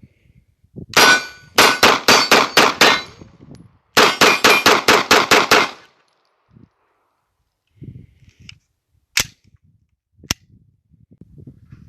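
Semi-automatic gunfire at a shooting range, fired in two rapid strings of about seven and eight shots at roughly four a second. Two single sharp cracks follow about a second apart near the end.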